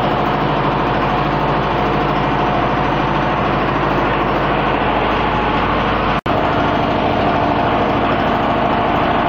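A generator engine running steadily with a loud, even drone. The sound drops out for an instant about six seconds in.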